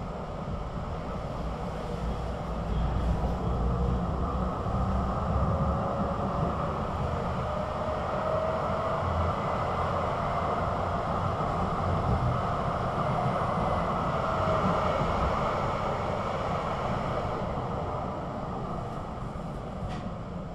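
Duewag GT8 articulated tram running, with a steady rumble of wheels on rail and a faint motor whine that rises and falls in pitch. It grows louder about two seconds in and quieter again near the end.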